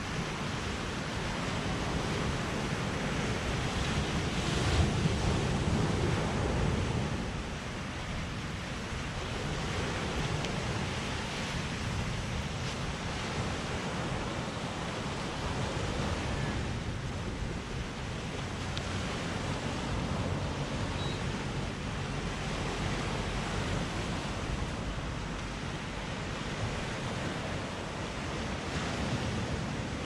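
Small ocean waves breaking and washing up on a sandy beach: a steady surf wash that swells and eases, loudest about four to six seconds in.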